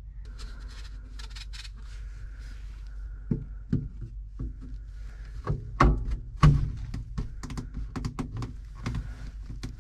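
ABS plastic drain pipe and P-trap being dry-fitted together by hand: a series of hollow plastic knocks and clicks, the loudest two about six and six and a half seconds in, over a steady low hum.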